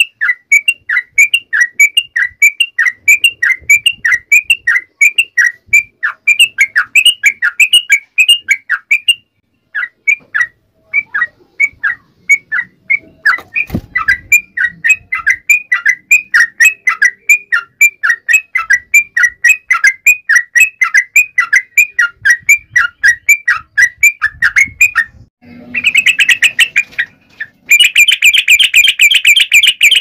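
Yellow-vented bulbul (trucuk) calling in a long run of short, falling chirps, several a second, with a short break about nine seconds in and a faster, denser run near the end.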